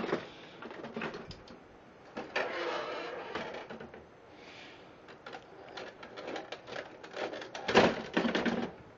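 Plastic clicks, knocks and rustling as hands work inside the open front of an HP LaserJet 2840 colour laser printer. A louder clatter comes near the end.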